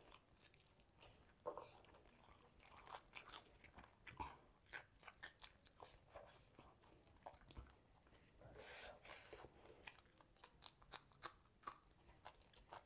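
A person eating close to the microphone: quiet chewing and biting with irregular crunches and sharp clicks, and a longer run of chewing about eight seconds in.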